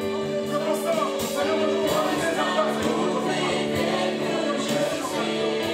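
Live gospel praise music: several voices singing together over held chords, with cymbal crashes every second or so from an electronic drum kit.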